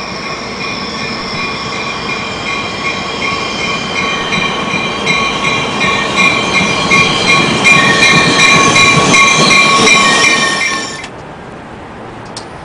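A train running on the rails, with several steady high tones over the running noise. It grows louder, then cuts off suddenly about eleven seconds in, leaving a quieter steady sound.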